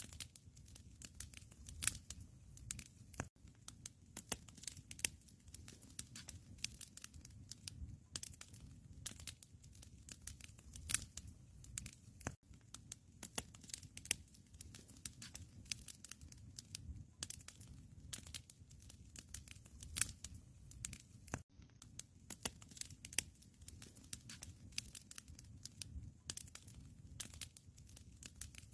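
Wood fire crackling in a fireplace: a dense, irregular run of sharp pops and snaps over a low steady rumble.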